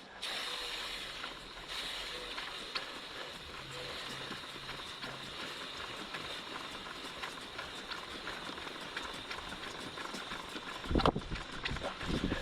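Aerosol chain wax spraying onto a motorcycle chain: a steady hiss that starts abruptly, followed near the end by a couple of louder knocks.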